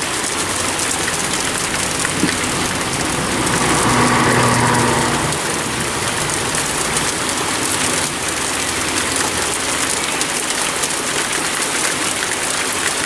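Heavy rain falling steadily, an even hiss. About four seconds in, a passing vehicle swells briefly above it and fades.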